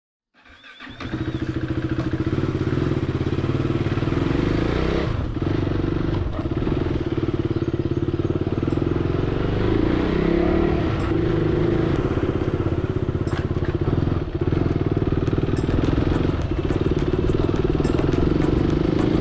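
A vehicle engine running steadily, fading in within the first second. A fast, high ticking joins near the end.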